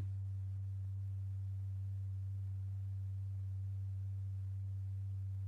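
A steady low pure tone held at one pitch, with a faint higher overtone: the tone that vibrates the diaphragm strewn with lycopodium powder, throwing the powder up where the waves summate.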